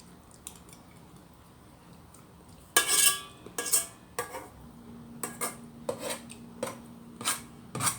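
A metal spoon scraping and clinking against a rice cooker's inner pot: about ten sharp scrapes and knocks, starting roughly three seconds in.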